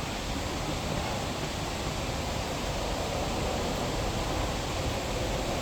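Steady, even rush of water from Multnomah Falls, the plunging waterfall close by.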